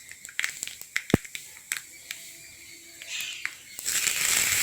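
Mustard seeds and urad dal spluttering in hot coconut oil: scattered sharp pops, several a second. Near the end a louder steady sizzle sets in as curry leaves go into the oil.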